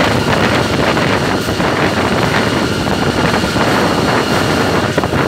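Loud wind rushing over the microphone on the end platform of a moving GE diesel-electric locomotive, with the train's running noise beneath. The locomotive runs through a tunnel and out into the open.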